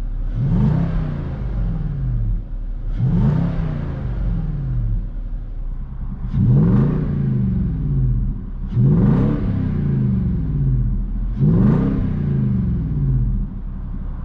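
Nissan Titan's 5.6L V8 revved five times in a row, heard from inside the cab. Each time the engine note shoots up quickly and then sinks back over a couple of seconds.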